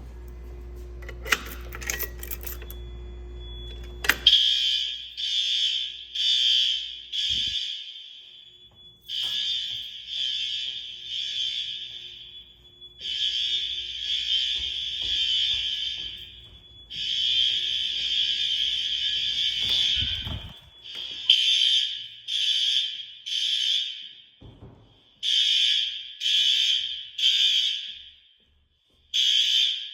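Fire alarm sounder going off during a test: a loud, high-pitched tone sounding in short pulses a little under a second apart, broken by a few longer unbroken stretches. It starts about four seconds in, after a low hum and a few clicks.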